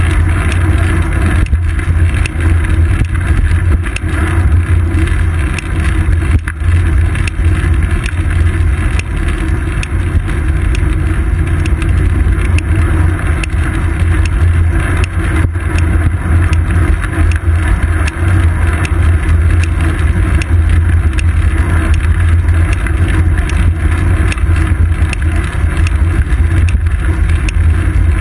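Steady loud low rumble of wind and road vibration on a seat-post-mounted GoPro Hero 2 while a bicycle rolls along a paved road.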